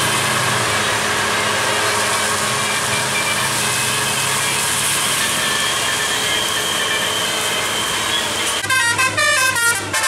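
Steady engine and road noise of a bus in traffic on a wet road, then about nine seconds in a telolet musical air horn starts playing a quick tune of short stepped notes.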